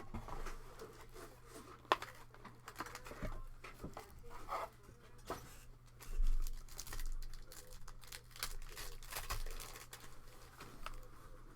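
Trading-card pack wrappers being torn open and crinkled, with scattered clicks and rustles of packaging and cards being handled, over a faint steady low hum.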